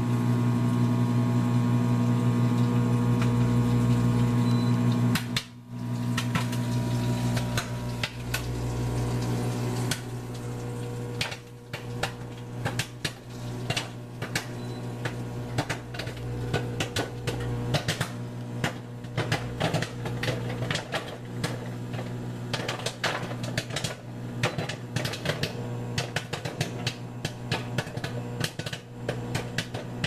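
Frigidaire FFCM1134LS countertop microwave running with a steady hum while a bag of microwave popcorn cooks inside. From about six seconds in, kernels start to pop, growing into a rapid, irregular crackle of pops.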